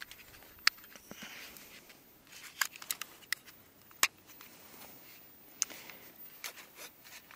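Scattered small, sharp plastic clicks and handling noise from fingers working at a toy quadcopter's plastic body and its clip-on camera module.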